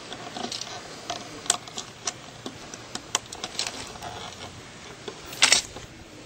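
Scattered light clicks and taps of stiff electrical wires being handled at an outdoor outlet box, with a short scrape about five seconds in.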